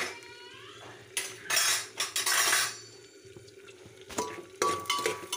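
Metal spoon scraping and clinking against an aluminium pressure cooker while green peas are stirred as they fry in butter. There are three short scrapes in the first half, and sharp ringing clinks on the pot's metal from about four seconds in.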